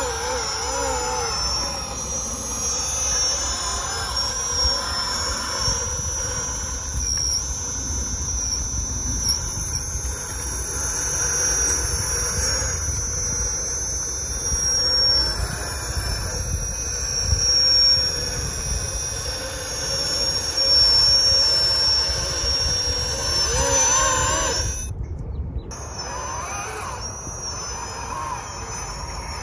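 Electric drive motor and gearbox of a radio-controlled Magirus Deutz 6x6 scale trial truck whining as it drives, the pitch wavering up and down with the throttle. The sound drops out briefly about 25 seconds in.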